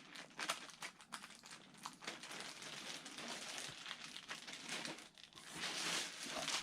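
Plastic packaging crinkling and rustling as it is handled, in irregular small crackles.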